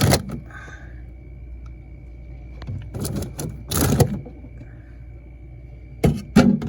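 Drink bottles and cans being handled and set into a mini fridge's shelves: a few short clunks and plastic rattles, about three and four seconds in and twice near the end, over a faint steady hum.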